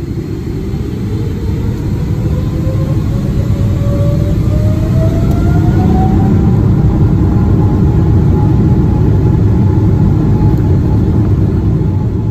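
Jet airliner engines spooling up: a loud, deep rumble under a whine that rises in pitch for about six seconds and then holds steady.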